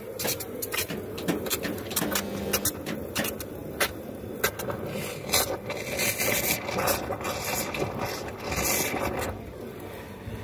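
Steam from a coffee machine's copper steam pipe frothing milk in a steel jug: a hissing, sputtering gurgle broken by many sharp crackles, strongest from about five to nine seconds in, then easing off.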